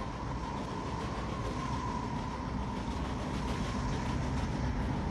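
Diesel locomotives running along the track, a steady heavy rumble of engines and wheels on rail.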